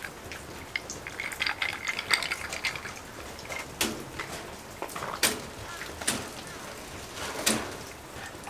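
Ice cubes clinking against the side of a small whisky glass as it is swirled: a run of small clicks, then about four sharper clinks spaced a second or so apart.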